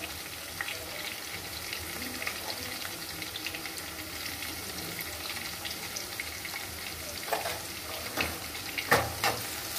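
Sliced onions, green capsicum and chillies sizzling steadily in oil in an aluminium kadai, with a few knocks against the pan in the last few seconds.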